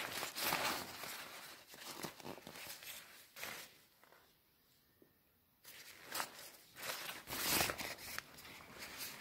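Thin, shiny plastic coat crinkling and rustling as it is handled and bunched up, in a series of bursts, with a pause of about two seconds midway.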